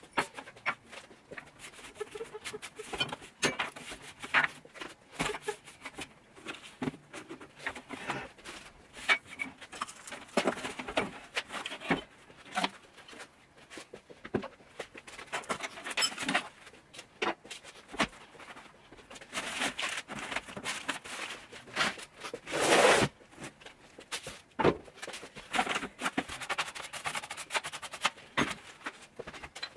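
Household objects being picked up, set down and wiped during cleaning: irregular clicks, knocks and rustles, with longer rubbing stretches and one louder brief swish about two-thirds of the way in.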